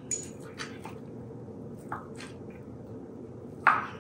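Kitchen knife cutting cooked rotisserie chicken on a wooden cutting board: a few irregular knocks of the blade on the board, the loudest near the end, with soft squishy sounds of the meat over a steady low hum.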